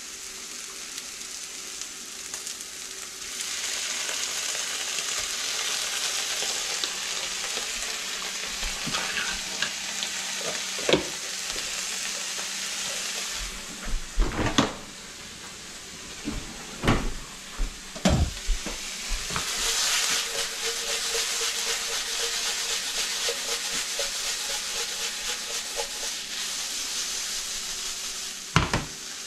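Diced potatoes and sausage frying in a skillet: a steady sizzle that grows louder a few seconds in. Several sharp knocks and clatters break in along the way.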